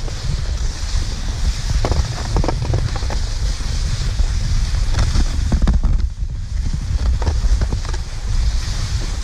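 Wind rumbling on the camera's microphone, over a steady hiss of skis sliding on packed snow, with scattered short clicks and scrapes.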